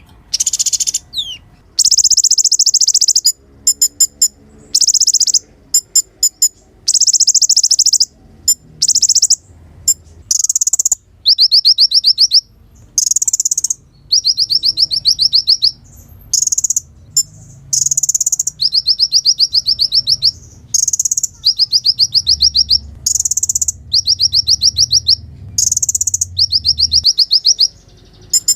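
Kolibri ninja (olive-backed sunbird) singing: loud, high-pitched rapid trills of about a second each, repeated with short pauses, mixed with brief sharp chips.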